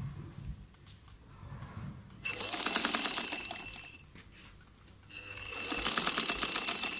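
Sewing machine stitching a rolled hem through a hemmer foot. It runs in two short bursts of rapid needle strokes with a steady high whine, starting about two seconds in and again about five seconds in.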